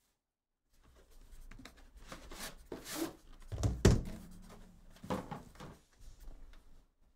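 Handling of a Panini Flawless aluminium briefcase-style box: its cardboard sleeve slid off and the metal case set and moved on the table, with a run of knocks and clicks, the loudest thump about four seconds in.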